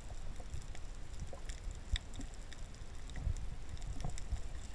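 Water sloshing in a low, uneven rumble, with scattered light clicks and ticks throughout.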